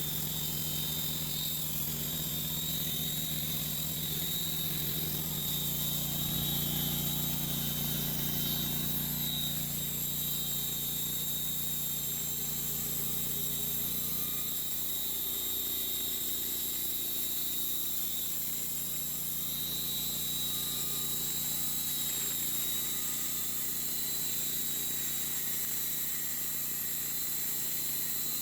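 Sawmill engine running steadily, with a steady high whine above it. The low drone swells a little about a third of the way in and eases about halfway through.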